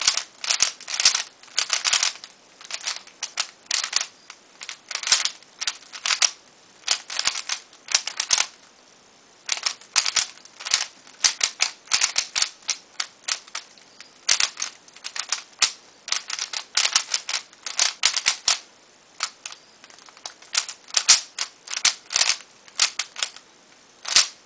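Dayan Guhong v2 3x3 speed cube being turned fast during a timed solve: its plastic layers clack in quick runs of clicks, broken by short pauses.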